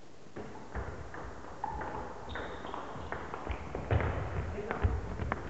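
Table tennis rally: rapid, irregular clicks of the ball on the bats and the table, starting a moment in, with footsteps and short shoe squeaks on the wooden hall floor.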